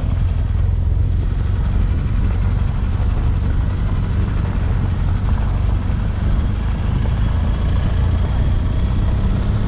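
BMW adventure motorcycle's engine running steadily at low speed on a gravel track, a constant low rumble with wind noise on the helmet microphone.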